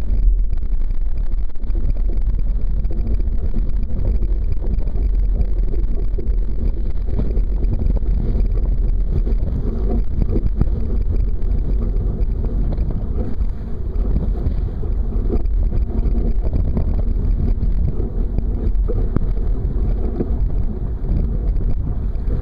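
Steady wind rumble buffeting the microphone, with water rushing and splashing along the hull of a Sunfish sailboat moving under sail in a stiff breeze.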